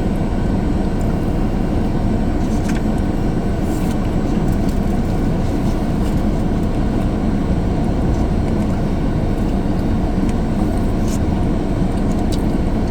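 Steady low rumble of a parked car running, heard from inside the cabin, with a few faint ticks of chewing on a biscuit.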